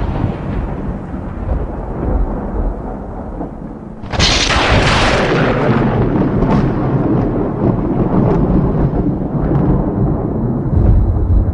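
Thunder: a rolling rumble dies away, then a sharp crack about four seconds in breaks into a long, low rolling rumble that swells again near the end.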